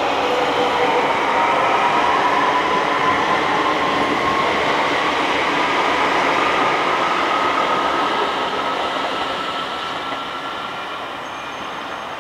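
Electric multiple unit pulling away, its traction motor whine rising slowly in pitch over the rumble of wheels on rail. The sound fades over the last few seconds as the train draws off.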